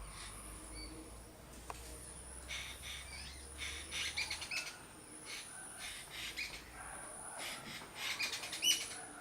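A bird calling in bursts of short, quick chirps while holding an insect in its beak, with the loudest cluster of notes near the end.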